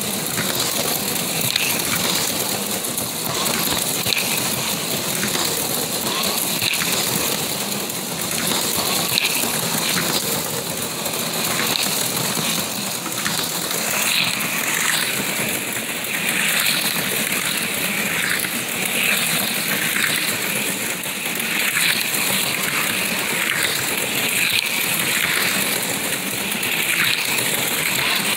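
HO-scale slot cars running laps on a plastic track at about half throttle: a steady whirring rattle of their small electric motors and guide pins in the slots, swelling and fading over and over from about halfway through as cars pass close.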